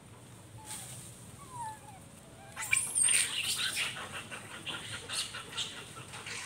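Macaques calling during a scuffle: a few soft, falling chirps, then from about two and a half seconds in a sudden burst of loud, high-pitched, rapidly repeated screams.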